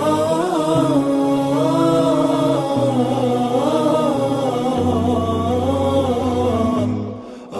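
Chanted vocal melody, wavering up and down, over a sustained low drone that shifts pitch in steps. It fades out near the end, and a new chanted phrase begins just as it ends.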